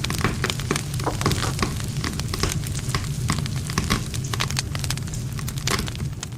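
Wood campfire crackling, with many irregular sharp snaps and pops over a steady low rumble of the burning fire.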